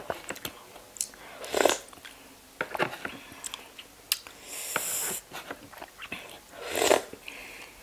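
A spoon clinks and taps against razor clam shells and the tray as sauce is drizzled over them, with a brief wet hiss in the middle. Two short breathy noises, about one and a half seconds in and again near the end, are the loudest sounds.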